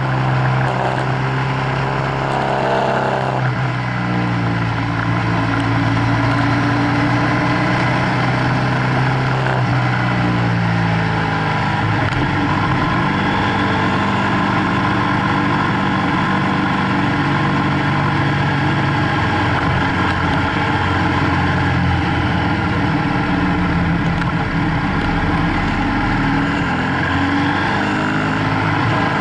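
BMW F800GS parallel-twin engine running under way, its note dropping a few seconds in and changing pitch again about eleven seconds in as throttle and gears change, over a steady rush of wind and road noise.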